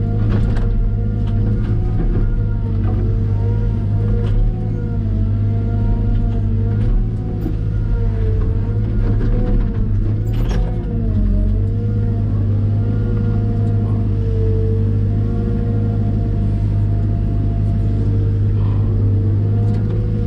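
Caterpillar M313D wheeled excavator's diesel engine running steadily under load, its pitch dipping and recovering again and again as the hydraulics take up work. Scattered knocks and clicks sound over it, the clearest about halfway through.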